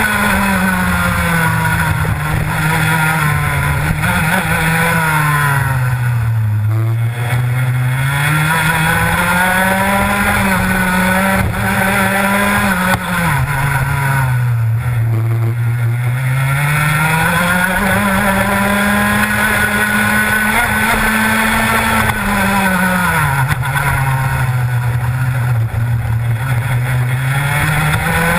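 Rotax Max 125cc single-cylinder two-stroke kart engine at racing speed, heard onboard. Its note drops three times as the kart slows for corners, lowest about seven, fifteen and twenty-five seconds in, and climbs back each time under acceleration.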